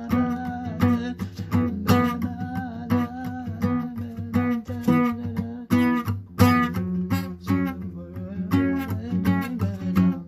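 Acoustic guitar music: chords struck in a steady rhythm over full low notes.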